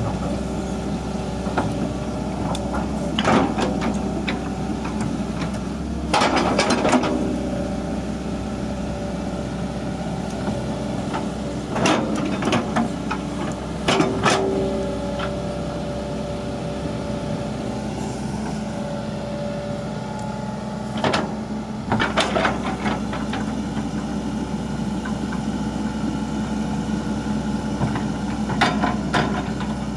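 Hitachi crawler excavator's diesel engine running steadily under hydraulic load, broken about six times by clusters of sharp knocks and clanks as the bucket digs into the ground and the steel tracks move.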